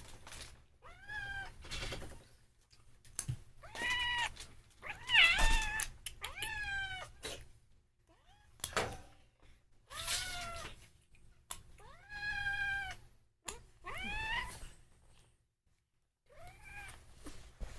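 Ragdoll cat meowing repeatedly, about eight drawn-out meows, each rising then falling in pitch, with short gaps between them.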